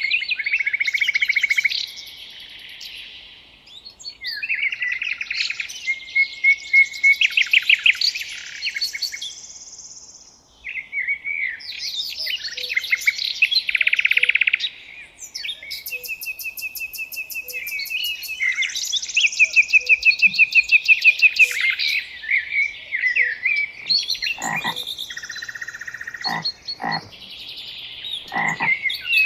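Songbirds singing: loud, varied phrases of rapid trills and whistled notes, each a few seconds long with short pauses between. Several short, deeper calls break in near the end.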